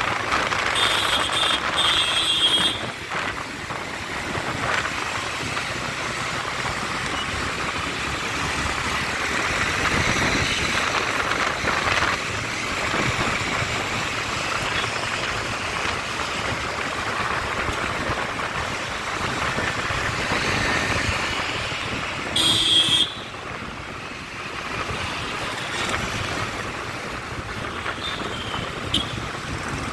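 City road traffic: a steady mix of engines and tyre noise, with a vehicle horn sounding briefly about a second in and again, louder, a little past twenty seconds.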